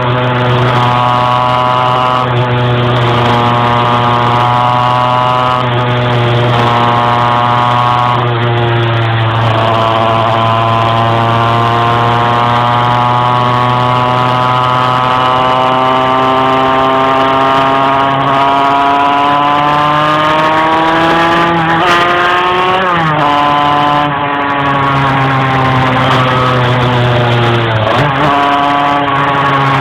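Two-stroke moped engine running under way, its pitch climbing only slowly and labouring, then falling sharply twice, about three-quarters of the way through and again near the end. The engine has trouble revving up while riding.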